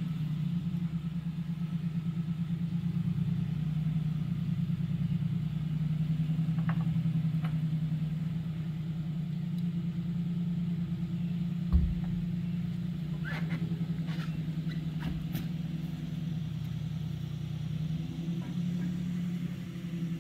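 Ford Ranger pickup's engine idling steadily while the truck creeps along. A dull thump comes about halfway through, followed by a few light clinks.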